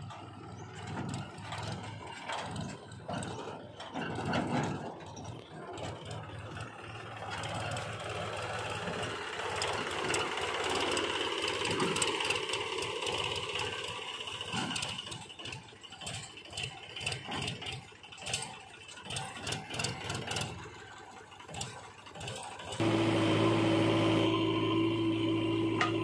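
Powertrac 434 DS Plus tractor's three-cylinder diesel engine running as it pulls a tipping trolley over rough dirt, with many short clicks and rattles. About three seconds before the end the sound switches abruptly to a steady humming tone.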